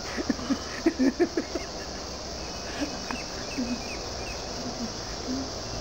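Crickets chirring steadily in a high, even drone, with a few spoken syllables in the first second and a half.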